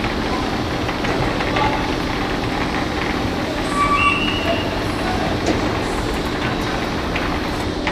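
Steady rumbling din with a low hum in an indoor soccer hall, with faint distant shouts from players about four seconds in and the odd faint knock of a ball.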